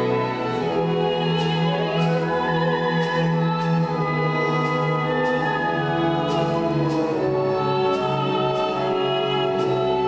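A soprano sings long held notes with vibrato over a symphony orchestra that sustains chords beneath her.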